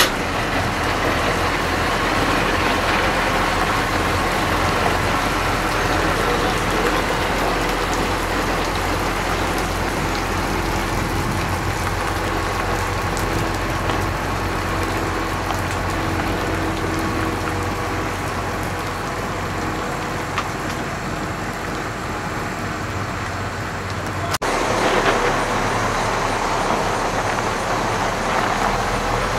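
Farm tractor's diesel engine running steadily under load as it tows a loaded multi-axle boat trailer. The sound changes abruptly about 24 seconds in.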